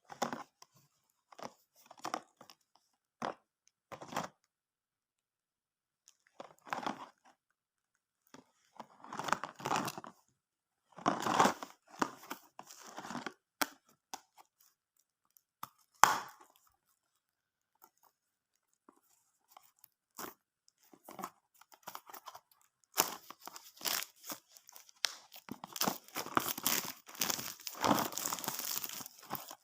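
Snack packaging being torn open and crinkled by hand: scattered rips and rustles, then dense continuous crinkling for the last several seconds.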